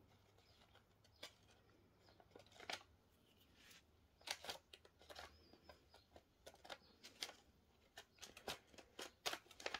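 Faint rustling and small clicks of thin vellum paper and a glued organza ribbon being handled and pinched between fingers, coming in scattered short bits that grow more frequent about halfway through.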